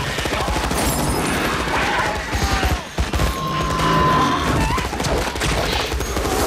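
Morita assault rifles firing in rapid automatic bursts, several guns at once, with a brief lull just before three seconds in. A shrill held tone rises over the gunfire about halfway through.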